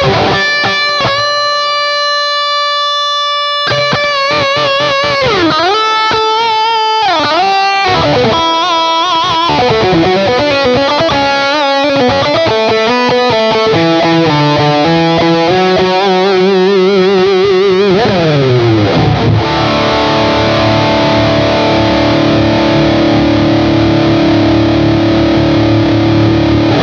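Soloking MS-H Classic electric guitar played through distortion from its single high-gain bridge humbucker. It plays held lead notes with wide vibrato and bends, then fast runs, a slide down in pitch about two-thirds through, and a chord held ringing for several seconds at the end.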